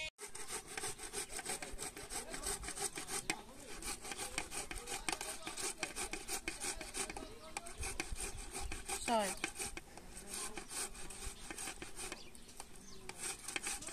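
Irregular scraping, rasping strokes, close and continuous, with a short falling call about nine seconds in.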